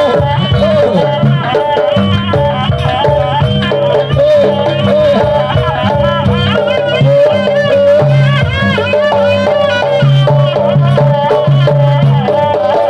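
Jaranan accompaniment music, loud and continuous: a wavering, ornamented reed melody held over steady low gong-like tones and drumming.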